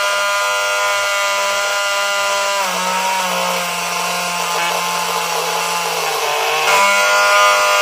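Homemade mini table saw's 12-volt DC motor spinning its blade with a steady whine. About two and a half seconds in, the pitch drops as the motor takes the load of a thin MDF strip being fed through the blade. It climbs back to full speed near the end, once the cut is through.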